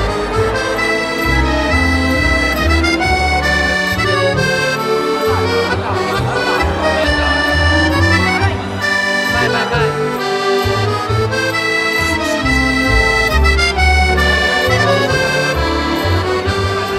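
Background music led by an accordion, playing held melody notes over a bass line.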